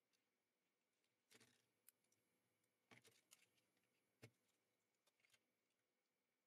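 Near silence, with a few faint clicks and rustles of a computer mouse's plastic shell being handled and fitted back together.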